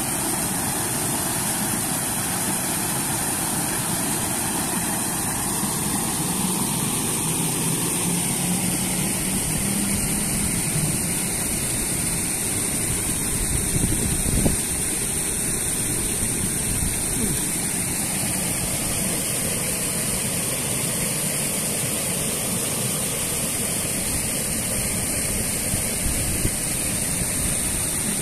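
Steady rushing of flowing river water, with a brief knock about halfway through.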